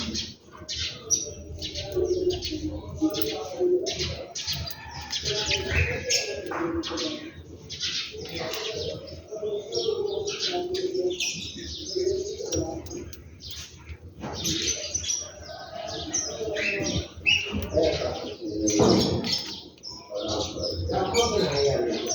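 Many small birds chirping busily and overlapping, with lower cooing calls running underneath.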